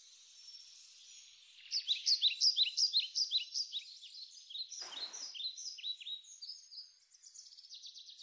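Several small birds chirping and singing together: quick, high, repeated notes that overlap, busiest and loudest from about two seconds in. A brief short noise cuts in about five seconds in.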